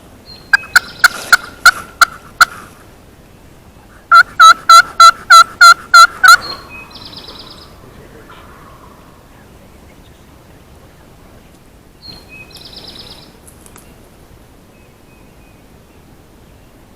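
Turkey yelps in two runs: about seven sharp notes in the first two seconds, then about nine louder, evenly spaced ones a few seconds later.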